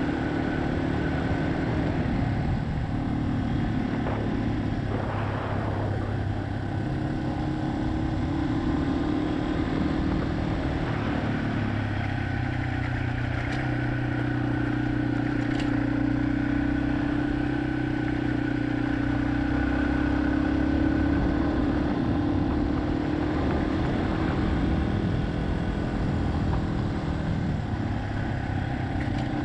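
Yamaha XT250 single-cylinder four-stroke motorcycle engine running under way, its note rising and falling several times with throttle and gear changes.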